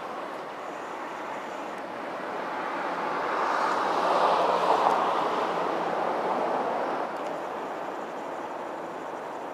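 EPL2T electric multiple unit moving along the track, a steady rumbling noise of wheels and running gear that swells to its loudest about four to five seconds in, then fades.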